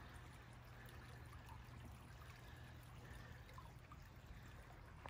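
Near silence: faint steady outdoor background hiss with a low hum.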